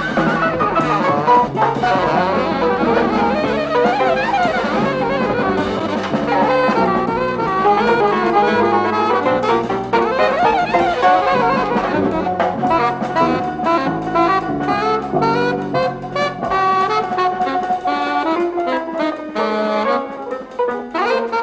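Jazzy cartoon score played by brass and saxophones over a moving bass line, with many short stepped notes.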